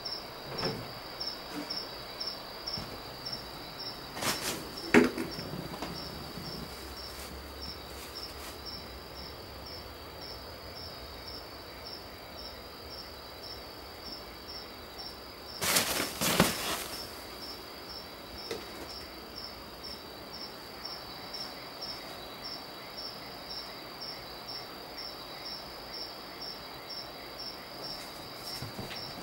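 A cricket chirping steadily in short, evenly spaced high-pitched chirps. Sudden thumps and rustling come twice, near the start and about halfway through, louder than the chirping.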